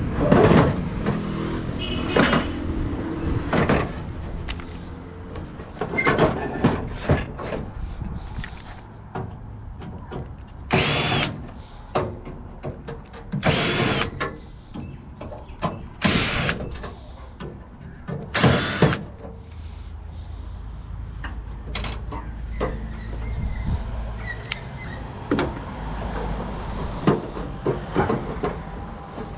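Irregular knocking, clattering and scraping of tools against the sheet-metal casing of a gas hot water unit as its inner assembly is worked loose, with four short, loud harsh bursts around the middle, about two and a half seconds apart.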